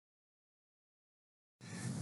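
Near silence: dead digital silence, then faint room hiss fades in near the end.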